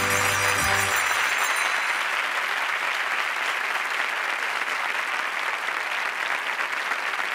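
Studio audience applauding steadily. The closing notes of the music end about a second in, a few high ringing tones fading out by about two seconds.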